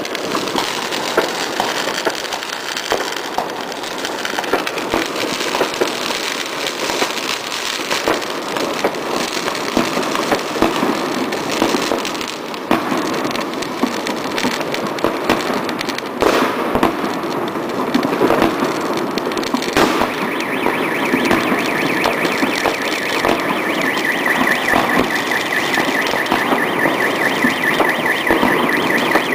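Many fireworks going off at once: continuous crackling with louder bangs now and then. From about twenty seconds in, a car alarm's repeating tone sounds under the fireworks.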